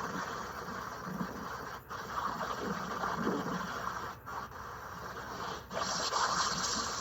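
Steady rush of hurricane wind, heard through a phone video call, cutting out briefly three times and growing louder near the end.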